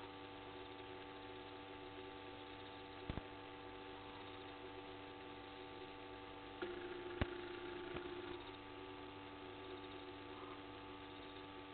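Steady electrical mains hum made up of several constant tones, with two short sharp clicks and, a little past the middle, an extra hum lasting almost two seconds.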